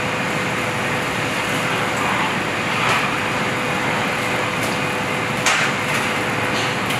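Steady hiss of commercial kitchen ventilation fans running, with a faint steady hum and a light click about five and a half seconds in.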